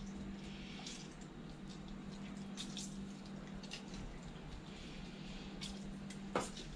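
Fresh lime squeezed by hand over raw fish in a stainless steel bowl: faint scattered drips and small wet squishes of juice, with one sharper knock a little before the end.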